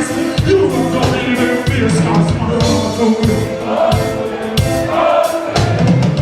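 Live reggae band music with singing over a steady drum beat.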